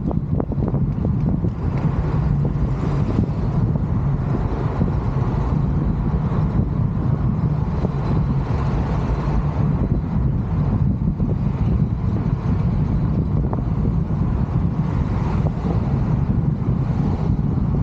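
Steady road and wind noise of a car driving, a continuous low rumble with no breaks.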